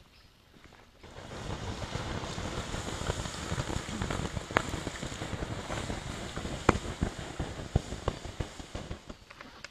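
Water poured onto the hot embers and ash of a campfire, hissing and sizzling with a few sharp pops as steam rises, putting the fire out. It starts about a second in and tails off near the end.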